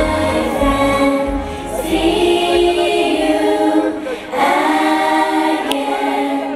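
A girl idol group singing together into microphones, amplified, with long held notes over a pop backing track. The bass beat drops out about a second and a half in, and the voices carry on almost alone, breaking briefly about four seconds in.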